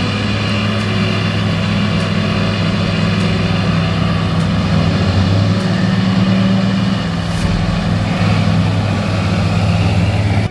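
Heavy farm machine's engine running steadily at a near-constant pitch.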